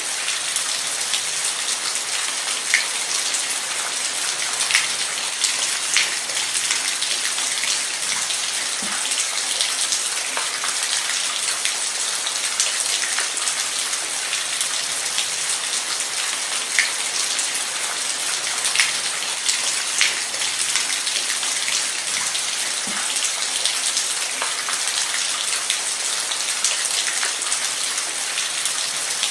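Steady rain falling, an even hiss with scattered louder single drop hits every second or two.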